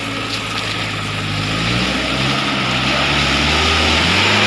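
Truck engine running hard, its pitch and loudness rising about halfway through as it revs up under load.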